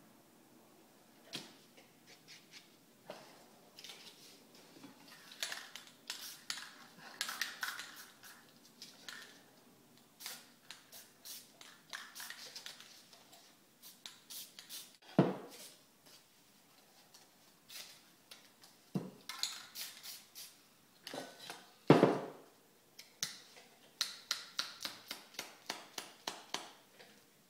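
Paper rustling and rubbing against a spray-painted board in quick repeated strokes, several a second near the end, broken by a few sharp knocks, the loudest about fifteen and twenty-two seconds in.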